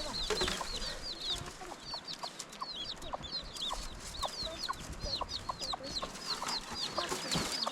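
Chickens clucking, with many short high chirps repeating throughout.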